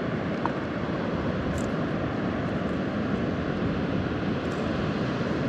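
Steady noise of sea surf breaking on a beach, an even rushing sound with no distinct splashes or pauses.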